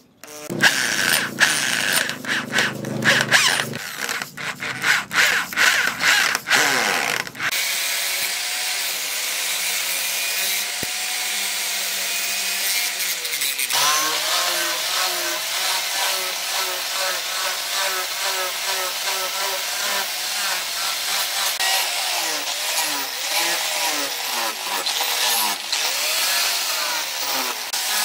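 Electric drill boring through a cleaver's handle scales, running in short stop-and-start bursts. About seven seconds in, an angle grinder with a sanding disc takes over and runs steadily against the handle for the rest of the time.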